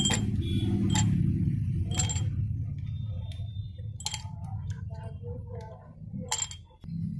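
Ice cubes dropped one at a time into empty glass tumblers: about five sharp clinks, each with a brief glassy ring, over a steady low rumble in the background.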